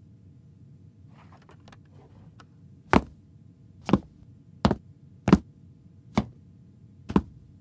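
A few faint ticks, then six sharp knocks on a hard surface, unevenly spaced roughly a second apart, starting about three seconds in.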